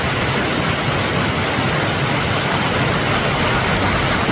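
Mountain creek running high with snowmelt: a steady, loud rush of water.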